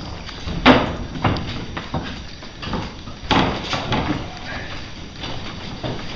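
A handful of irregular knocks and thumps on a wooden table while a metal spoon stirs coffee in a small cup.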